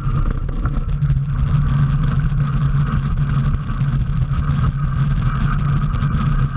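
Aircraft tow tug's engine running steadily while towing, a low engine drone with a steady higher whine above it.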